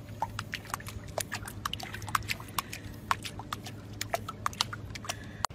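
Small, irregular splashes and drips of water as a pug puppy paddles in a swimming pool while held up by hand, over a faint low hum.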